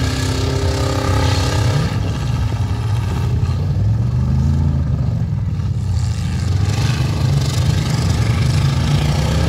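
Engines of several demolition derby pickup trucks running and revving as they drive around the arena, their notes rising and falling.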